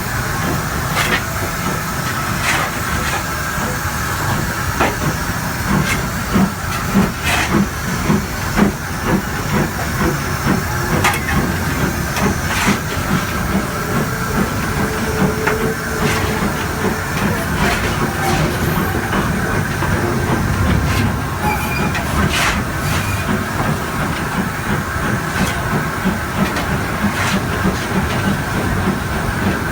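Ivatt Class 2MT 2-6-0 steam locomotive heard from the footplate: a steady hiss of steam over a low rumble, with scattered sharp clicks and knocks.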